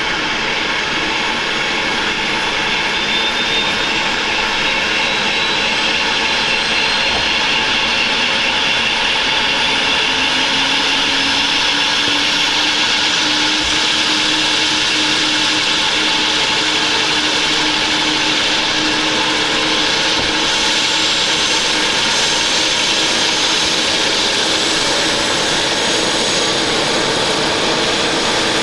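Airbus BK 117 D-3 helicopter running on the ground with its main rotor turning: a loud, steady whine from its twin turboshaft engines over the rush of the rotor. Some of its tones slowly rise in pitch.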